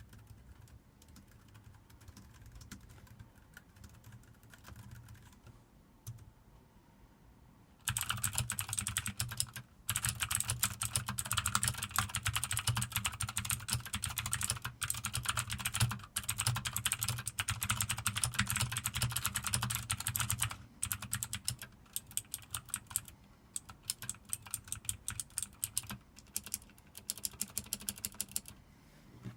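Typing on computer keyboards. For about the first eight seconds the keystrokes are faint and soft, typical of the quiet Trust wireless keyboard. From about eight seconds in, much louder, sharp, rapid clicking follows, typical of a blue-switch mechanical keyboard, thinning to slower, separate keystrokes after about twenty seconds.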